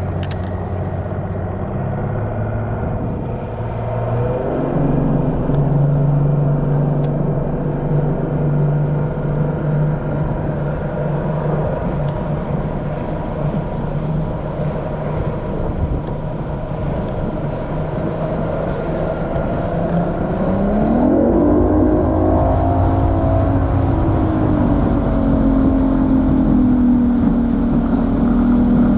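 Bass boat's outboard motor running steadily underway, its pitch rising about four seconds in and again with a rising glide a little past two-thirds of the way through as the throttle is opened.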